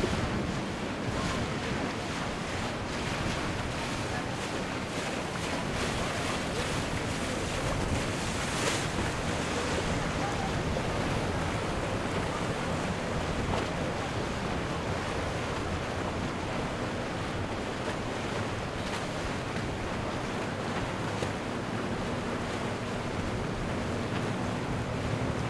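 Water washing and churning along a passing motor yacht's hull, with wind on the microphone and a low, steady engine hum underneath.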